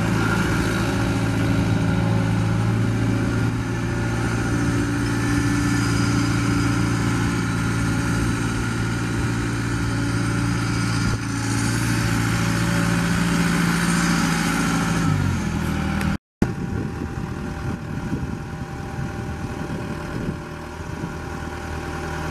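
John Deere 6320's 4.5 L four-cylinder turbo diesel idling steadily, then winding down as it is shut off about 15 seconds in. After a cut, a quieter, rougher running noise follows.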